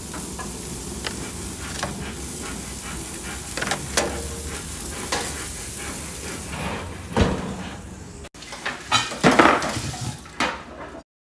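Seasoned striploin steaks sizzling on a hot barbecue grill's grates, a steady sizzle with scattered clicks and knocks as the steaks are laid on. After a cut about eight seconds in, a short run of louder knocks and clatter from the handling of cast-iron sizzling plates, ending suddenly.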